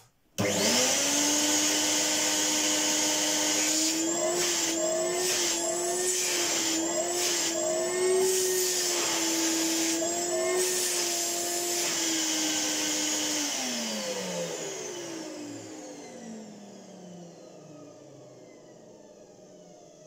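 A 1984 Hoover Compact S3196 cylinder vacuum cleaner switched on for its first run in years: the motor spins up quickly to a steady whine, its pitch wavering up and down several times, then it is switched off about 13 seconds in and winds down with a long falling pitch. The motor bearings are a bit dry, giving a slight grumble, though it doesn't sound too bad.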